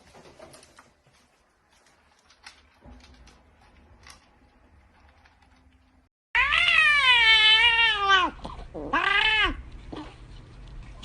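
A cat gives a loud, long meow whose pitch wavers up and down, and then a second, shorter meow, a typical vocalising of a cat over its food. These come after several seconds of faint clicks.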